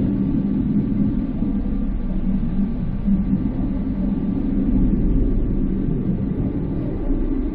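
Diesel local train running at speed, heard from on board as a steady low rumble with a faint even hum above it.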